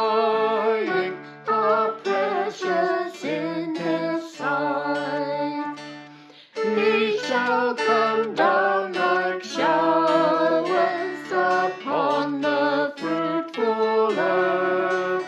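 A hymn sung by a small group of voices with guitar accompaniment. The music dies away about six seconds in, then starts again with the next verse.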